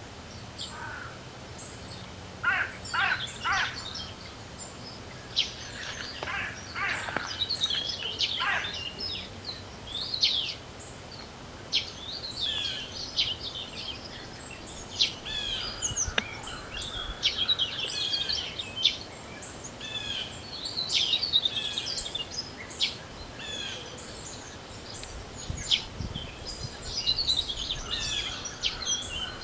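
Several songbirds singing and calling over one another in spring, with quick chirps and trills, over a steady background hiss of wind. A low rumble comes in near the end.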